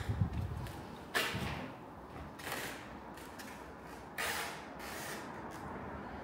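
Two short rustling scrapes about three seconds apart, each dying away within about half a second, over faint background noise.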